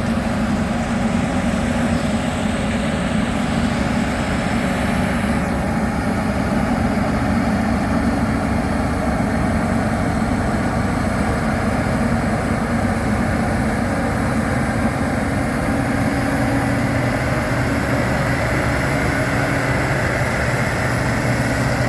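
International combine harvester running steadily under load while harvesting wheat, its engine and threshing machinery giving a constant drone.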